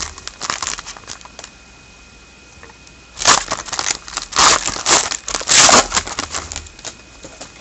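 Trading card pack wrapper being torn open and crinkled by hand. After a few light handling clicks come four loud rips in quick succession, the last one the loudest.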